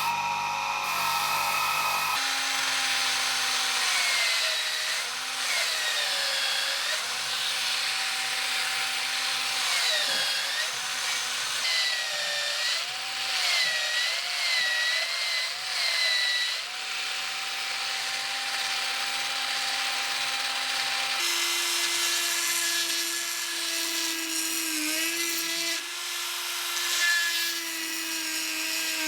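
Small electric power tool motor whining, its pitch dipping and recovering again and again as it is loaded against the work. It changes abruptly to a slightly different steady whine about two-thirds of the way through.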